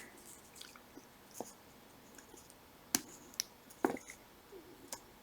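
Scattered small clicks and scrapes of a small tool working against the metal parts of a Shimano 105 5800 shifter mechanism, prying at a circlip on its shaft. The sharpest clicks come about three seconds in and again about four seconds in.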